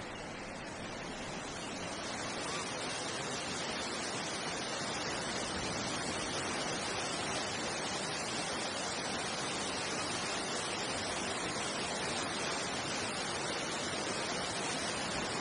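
Steady, even rushing noise like static or heavy spray, with no tone or rhythm. It swells a little over the first two seconds, then holds level.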